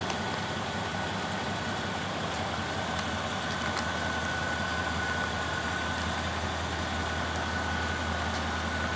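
Chevrolet S10 pickup's V6 engine idling steadily with a low exhaust rumble and a thin, steady high whine over it.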